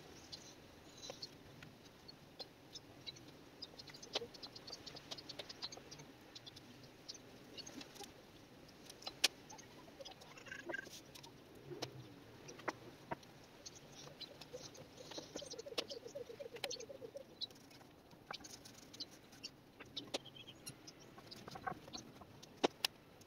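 Faint scattered clicks and taps of a brush and gloved hands working finish into a drilled wooden rack, with a few faint chirps in the background.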